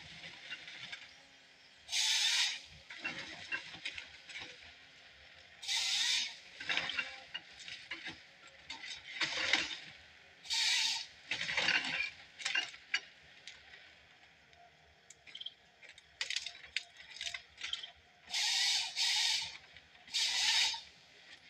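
John Deere 1070G harvester's head processing a stem, its chain saw cutting through the log again and again in short rasping bursts under a second long. Between the cuts come clicks and rattles from the feed rollers and knives.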